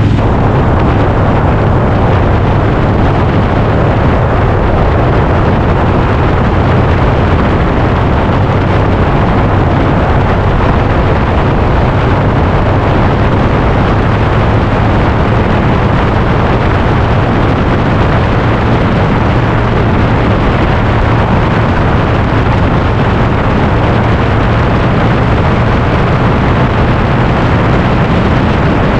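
Harley-Davidson Softail's V-twin engine running steadily while the motorcycle is ridden, with a loud rush of wind and road noise.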